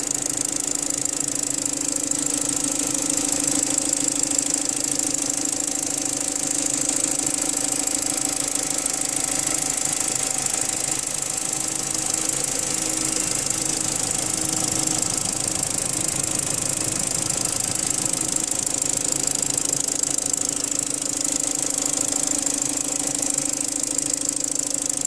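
BMW N45 four-cylinder petrol engine running steadily with a knocking rattle, the engine knock the owner is recording.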